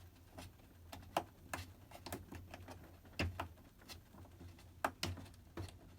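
Irregular light plastic clicks and knocks as a washer's door lock assembly is handled and pushed back into place, about ten taps spread out with no steady rhythm.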